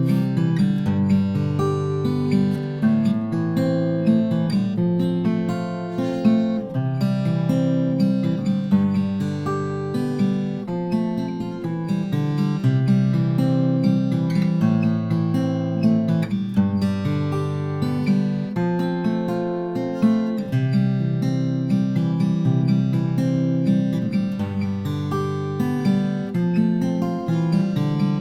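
Martin 0012-28 acoustic guitar played fingerstyle: a steady stream of plucked melody notes over alternating bass notes. It is recorded dry through a large-diaphragm condenser mic, with no EQ or compression.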